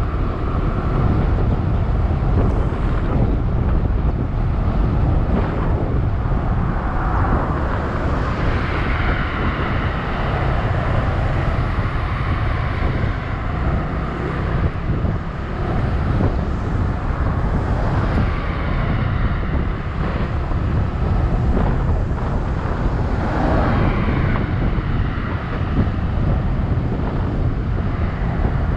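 Wind buffeting a GoPro action camera's microphone on a moving scooter, with the scooter's engine and road traffic under it. The noise swells a few times as other vehicles go by.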